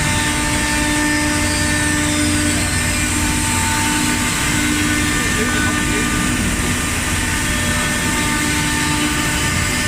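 CNC wood milling machine running steadily while milling a wooden chair leg: a constant machine whine with several steady tones over a broad cutting and motor noise.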